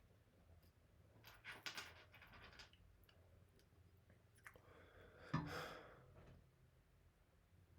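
Unboxing handling noises: a cluster of soft rustles and clicks about a second and a half in, then a single sharp knock about five and a half seconds in, followed by a brief scrape.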